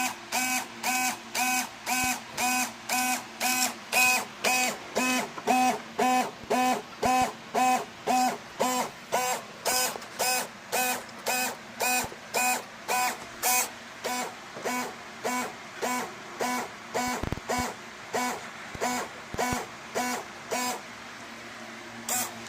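Small hydraulic pump of a model P-38's retractable landing gear running during gear retraction: a pitched machine tone pulsing on and off about twice a second. The pulsing stops near the end.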